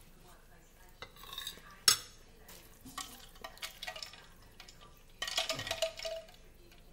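A metal spoon set down with a sharp clink against a ceramic bowl about two seconds in, followed by a few lighter clicks. Near the end comes about a second of noisy sipping as she drinks water from a glass.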